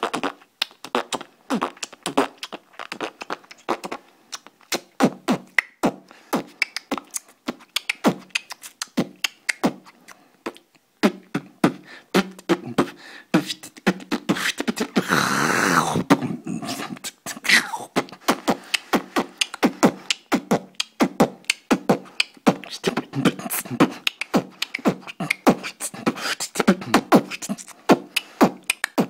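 Human beatboxing: a fast, steady rhythm of mouth-made clicks and drum beats, with one longer held sound lasting about two seconds around the middle.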